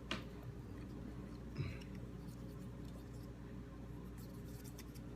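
Faint scratching and light clicks of a cotton swab and small steel parts being handled on a dirty 1911 pistol slide, with one slightly louder touch about a second and a half in, over a steady low hum.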